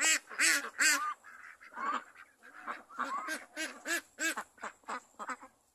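A flock of Pekin ducks quacking, many short calls in quick succession. The calls are loudest in the first second and die away near the end.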